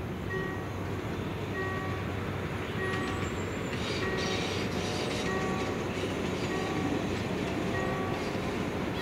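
Diesel locomotive hauling a passenger train, its engine running steadily and slowly getting louder as it approaches. A bell dings steadily about once every second and a quarter throughout.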